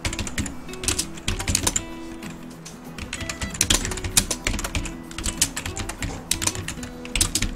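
Typing on a computer keyboard, keystrokes coming in several quick runs with short pauses between, over background music.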